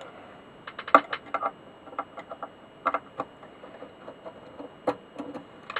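Screwdriver working chassis screws out of the base of a wooden valve-radio cabinet: scattered sharp clicks, ticks and taps of metal on screw heads and wood, coming in short clusters, the sharpest about a second in.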